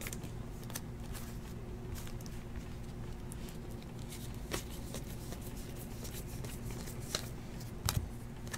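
Stack of cardboard basketball trading cards being flipped through by hand, with soft sliding and a few sharp clicks as cards snap past each other, over a steady low hum.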